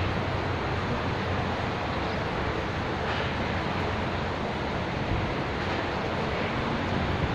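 Steady rushing wind noise on the microphone, even throughout with no clear breaks.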